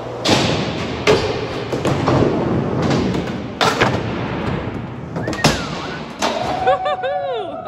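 Skateboard wheels rolling on a concrete skatepark floor, broken by several sharp clacks and thuds of the board hitting the ground. About six seconds in the skater falls with a thud, and a person's voice cries out near the end.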